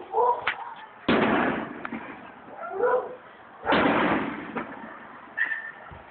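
Aerial firework shells bursting overhead: two sharp booms, about a second and three and a half seconds in, each trailing off in a long rumbling echo.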